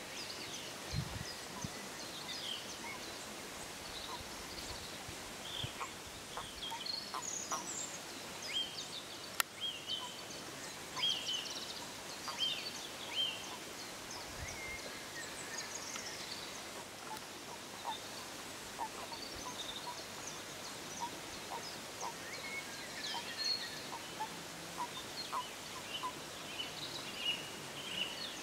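Small birds chirping and calling in short, high notes, scattered through a steady outdoor background hiss.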